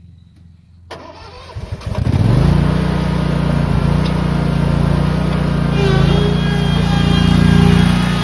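Lawn mower engine being cranked. It catches about two seconds in and settles into a steady run.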